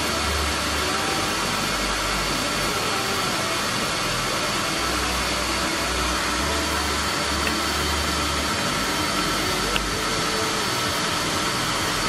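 Numatic Henry cylinder vacuum cleaner running steadily: a constant rush of suction with a steady whine over it. A brief click about ten seconds in.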